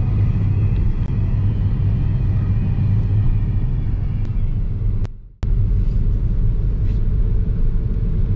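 Steady low rumble of engine and road noise inside a moving car. It breaks off for a moment about five seconds in, then carries on.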